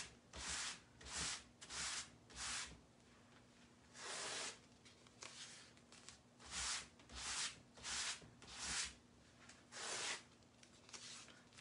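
Sticky adhesive silk-screen transfer being pressed onto a microfiber fuzzing cloth and peeled off again, a dozen or so short rubbing and peeling strokes in irregular runs. The transfer's adhesive is being dulled with cloth fibre so it is less sticky.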